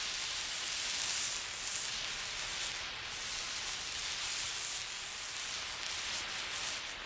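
Burning emergency flare hissing, the hiss swelling and dipping as the flare is moved.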